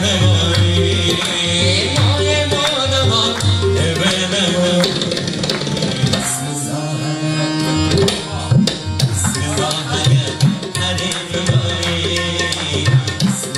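Harmonium and tabla playing an instrumental passage of a ghazal: held reedy harmonium notes under quick tabla strokes. The drumming drops back briefly past the middle and returns with sharp, prominent strokes.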